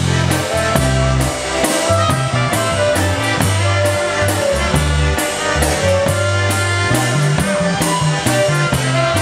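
Polka band playing an instrumental passage of a waltz, with trumpet and clarinet carrying the melody over a sustained bass line and a steady, evenly spaced drum beat.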